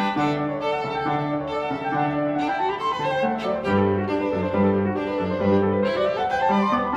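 Instrumental background music: a melodic piece of held notes changing about every half second over a repeating bass line.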